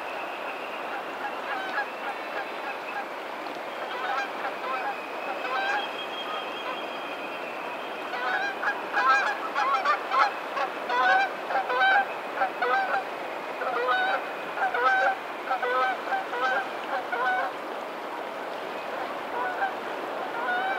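Waterfowl honking in short, repeated calls, a few at first and then a dense run through the middle, over a steady wash of water.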